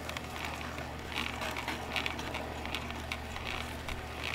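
Omega VRT330 vertical slow juicer running: a steady low motor hum with irregular crackling and clicking as the auger crushes produce.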